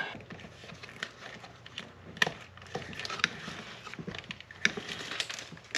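Light, irregular clicks and scrapes of nylon trimmer line being pushed by hand through the eyelet of a line trimmer's plastic spool head.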